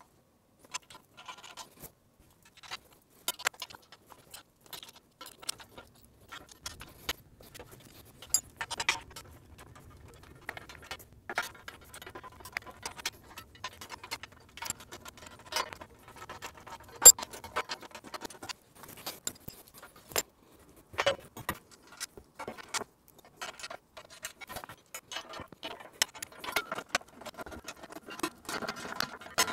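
Irregular metallic clinks and clatter of bolts and steel frame parts being handled and fitted together while a 20 ton hydraulic shop press frame is bolted up.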